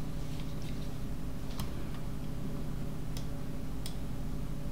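A few sharp, isolated computer-mouse clicks over a steady low electrical hum.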